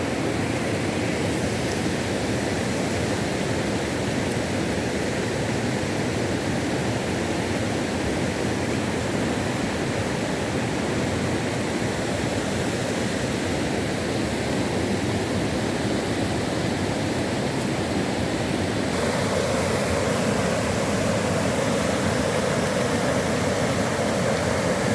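Steady rush of running water, with no breaks; its tone changes slightly about 19 seconds in.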